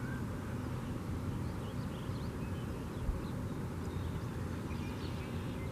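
Steady low outdoor background rumble with a few faint, short high chirps.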